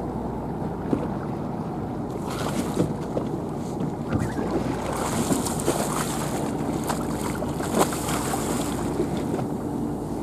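Hooked mahi-mahi thrashing at the surface beside a boat, the water splashing in bursts over a steady low rumble of wind and boat noise; the splashing is heaviest about halfway through.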